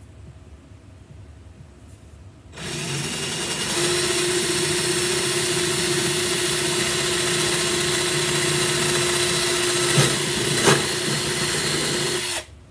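Cordless drill with a step bit boring a control-pot hole through an acoustic guitar's top. It starts about two and a half seconds in, runs steadily for about ten seconds with a couple of brief knocks near the end, then stops suddenly.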